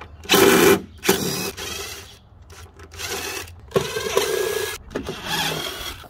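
Power drill driving a 5/16 nut-driver bit, backing out screws from the boat hull in a series of short whining bursts, about five or six in all.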